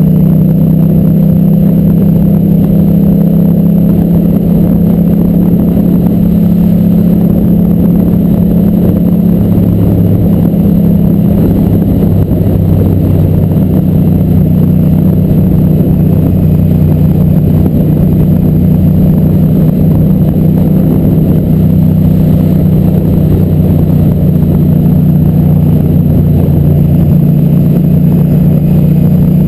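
Racing motorcycle engine running hard at high, nearly steady revs, loud and unbroken.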